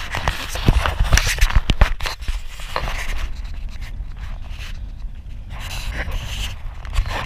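Steady low rumble of wind on the microphone, with a quick run of sharp knocks and scrapes in the first two seconds and a few more later, as a tow rope is handled on the boat's bow.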